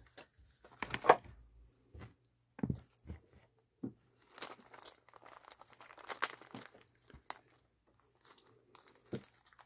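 Small plastic zip bag crinkling and rustling as hands open and handle it, in short, irregular rustles with pauses between, the loudest about a second in.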